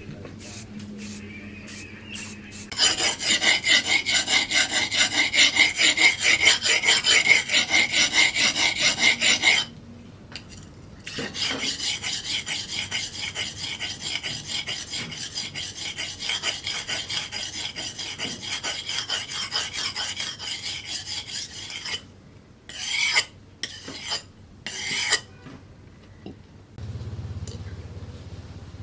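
Leaf-spring steel cleaver blade being worked by hand against a file or abrasive, with quick back-and-forth scraping strokes at about four a second. The strokes stop briefly, resume lighter, and end in a few separate strokes.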